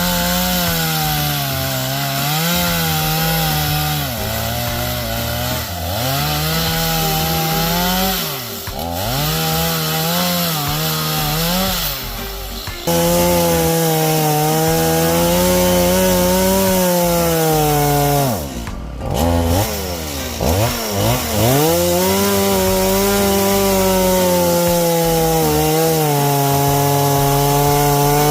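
Two-stroke chainsaw cutting through brush and wood, its engine pitch sagging under load and picking up again again and again. Near the middle the revs drop right off and climb back up.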